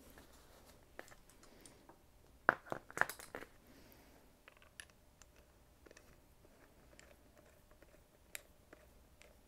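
Faint, irregular clicks and clinks of hand tools and fork parts being handled, with a short cluster of louder clicks about two and a half seconds in, then only sparse small ticks.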